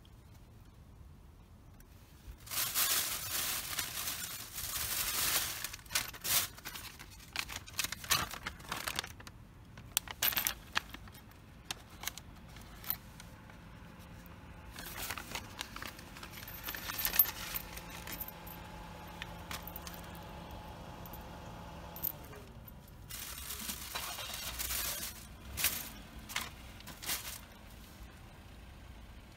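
A paper bag crinkling and rustling in bursts, with small steel bolts, washers and nuts clinking against each other in it, and scattered light clicks of handled parts.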